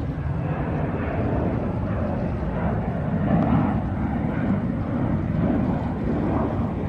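Jet airliner climbing out after takeoff: a steady rumble of jet engine noise that swells and wavers slightly.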